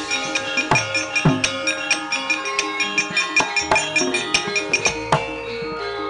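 Javanese gamelan accompanying a wayang kulit shadow-puppet play: loud, rhythmic kendang drum strokes over ringing bronze metallophones, punctuated by sharp knocks of the dalang's keprak as the puppets are moved.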